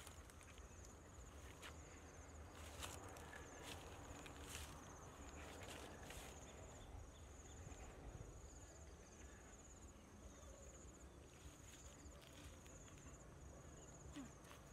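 An insect trills faintly, in short high pulses that repeat about once a second, with a few light clicks and knocks.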